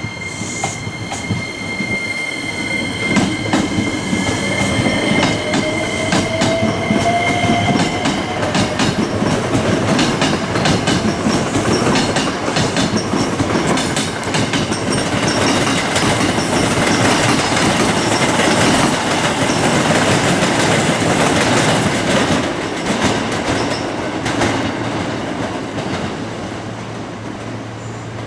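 Hankyu electric train passing close by over station pointwork: wheels clatter over the switches and rail joints. A high steady squeal runs through the first several seconds, and a whine rises in pitch a few seconds in. The sound peaks after the middle and fades away near the end.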